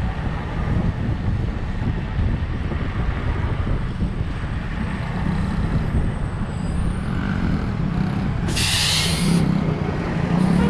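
Motor vehicle engine running with a steady low rumble, and a short hiss of about a second near the end, like an air brake releasing.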